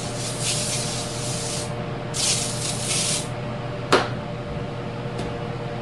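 Two bursts of hissing spray during hydraulic-cylinder parts cleaning, the first ending under two seconds in and the second about a second long, followed by a sharp click about four seconds in and a fainter click a second later, over a steady shop hum.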